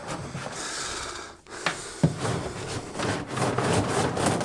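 LAN patch cables being handled and pulled along a wooden cabinet: rustling and rubbing with small knocks, and one sharp click about two seconds in.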